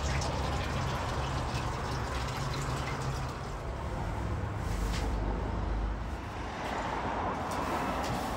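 Gas-fired clay tandoor giving off a steady rushing hiss.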